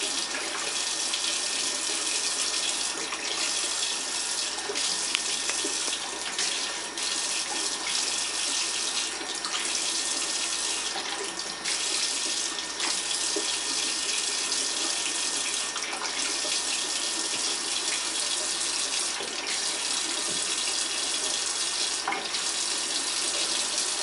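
Kitchen faucet running a thin, steady stream of water into a stainless steel sink, splashing over an African grey parrot bathing under it.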